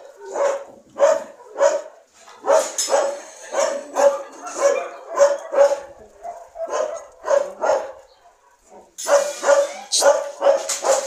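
Dogs barking in short repeated barks, about two a second, with a brief pause near eight seconds in before the barking starts again.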